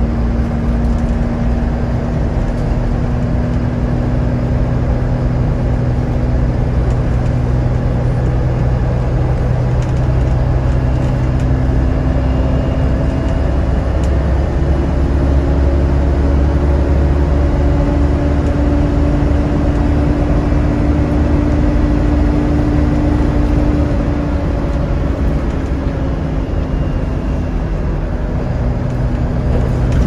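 A Volvo B7TL double-decker bus under way, heard from inside the lower deck: its diesel engine gives a steady low rumble, with a droning, vacuum-cleaner-like whine (the 'hoover' this bus is known for). The hum rises in pitch and strengthens through the middle, then eases off about three quarters of the way through.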